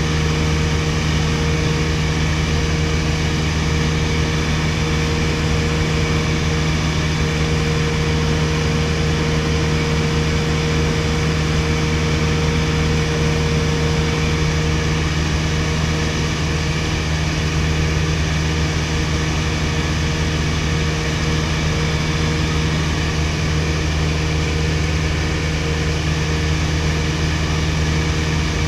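1961 Piper Colt's 108 hp Lycoming four-cylinder engine and propeller in cruise flight, heard from inside the fabric-covered cabin as a steady drone. A higher hum within it fades out about halfway through.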